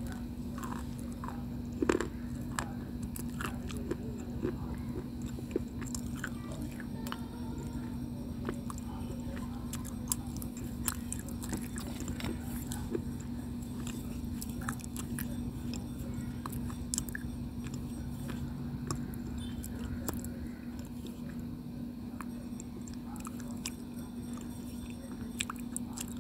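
Someone biting and chewing white slate stone: many small, sharp crunches and cracks as it is ground between the teeth, the sharpest bite about two seconds in. A steady low hum runs underneath.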